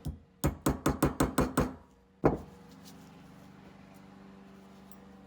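Hammer tapping a punch to drive the float pivot pin out of a Bing carburetor body: one tap, a quick run of about seven taps, then a single harder tap a little after two seconds in.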